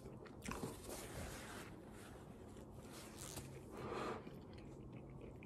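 Faint chewing of a mouthful of fried chicken with the mouth closed, with a few soft scratchy mouth noises and small clicks.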